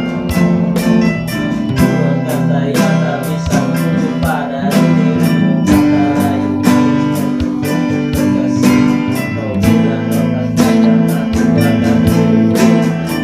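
Acoustic guitar strummed in a steady rhythm while a man sings along, holding one long note in the middle.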